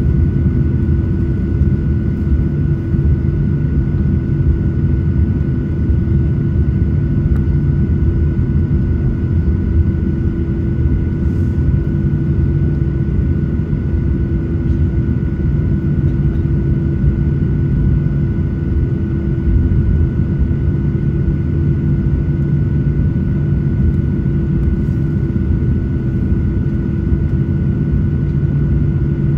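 Airliner cabin noise on the ground, with the jet engines running at low power: a steady rumble under a constant whine that neither rises nor falls.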